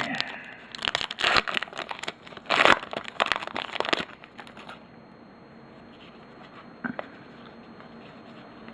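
Plastic-foil trading card pack wrapper crinkling and crumpling as it is opened and handled, for about four seconds, then it goes quiet apart from one small click.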